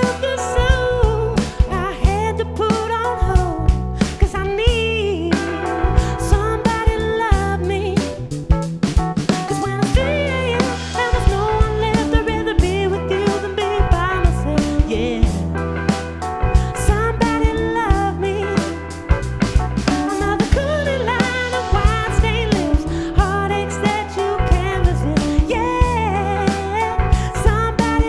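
Live band playing a psychedelic soul song: drum kit keeping a steady beat under bass and electric guitar, with a bending melody line on top.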